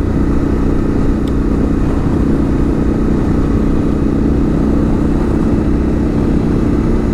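Suzuki V-Strom 1050XT's V-twin engine with a GR Moto exhaust, running at a steady cruising speed with no change in pitch, under a low rush of wind and road noise.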